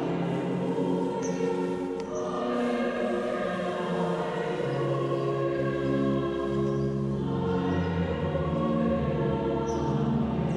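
Choral music: a choir singing slow, sustained chords, each held for about a second or more before changing.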